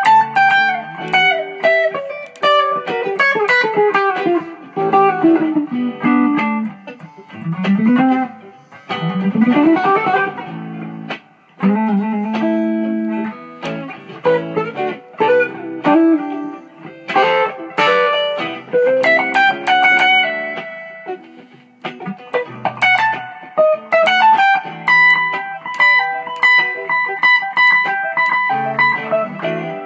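Kay electric guitar played through an Eko amp in an improvised solo: quick falling runs of single notes, notes sliding upward around eight to ten seconds in, and notes held for several seconds near the end.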